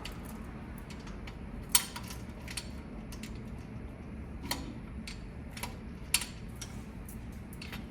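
Timing chain and plastic chain guide being worked onto the engine's sprockets by hand: scattered sharp metallic clicks and clinks of chain links and parts, the loudest about two seconds in and again about six seconds in, over a low steady hum.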